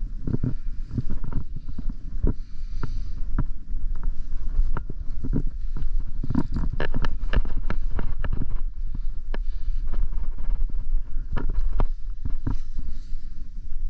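Wind buffeting the microphone in a steady low rumble, with frequent irregular clicks and knocks of gloved hands, rope and climbing gear against granite rock.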